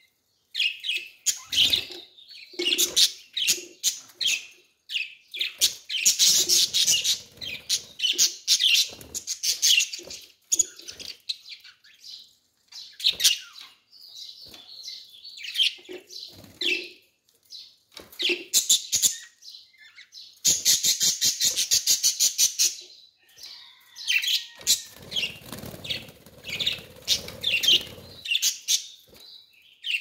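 Caged budgerigars chattering: a busy, near-continuous mix of short high chirps, warbles and squeaks, with a run of rapid buzzy ticking about two-thirds of the way through.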